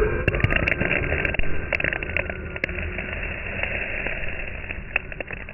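Three RC monster trucks accelerating hard away on loose dirt. Their motors' whine fades as they pull off, and flung dirt and pebbles make sharp clicks, mostly in the first three seconds.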